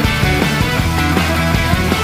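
Rock music with distorted guitars and a steady beat.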